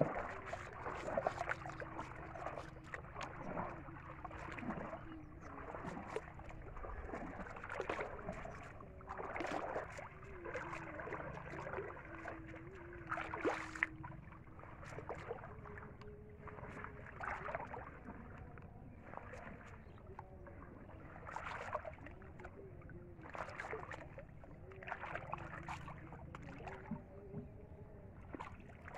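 Water splashing and sloshing in irregular bursts as legs wade through shallow river water and a mesh ring-net trap is lifted and dragged, over a faint wavering hum.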